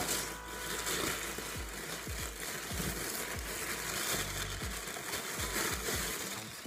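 Paper packing wrap rustling and crinkling as a boxed eyeshadow palette is pulled out of it by hand, with a few soft knocks of the box.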